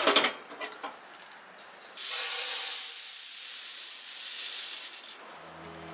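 Metal clicks as the mesh drum is pulled from a home coffee roaster. Then freshly roasted coffee beans pour out of the drum into a steel mesh cooling tray, a dense rattling hiss for about three seconds. Background music comes in near the end.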